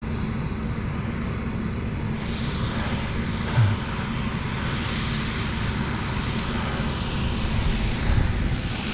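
Steady drone of a propeller airplane's engine mixed with wind rumbling on the microphone, with a brief low thump about three and a half seconds in.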